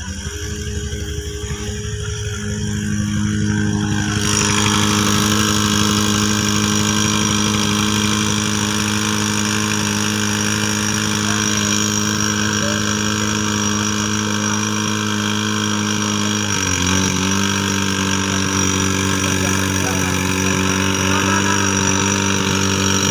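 Tohatsu V50 portable fire pump's two-stroke engine running steadily. It comes up in speed and level over the first few seconds, and a broad hiss of the water jet joins about four seconds in. The engine note dips slightly about two-thirds of the way through. It runs smoothly after an overhaul of its vacuum priming pump, piston rings and carburettor.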